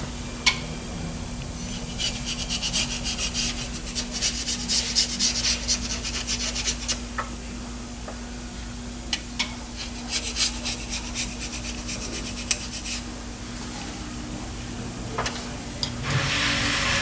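Hand tools working on a Pontiac 400 engine during teardown: several bursts of rasping, scraping noise with a few sharp metallic clicks between them.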